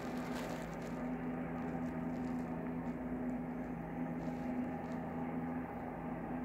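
A steady low electrical hum with a faint haze of background noise.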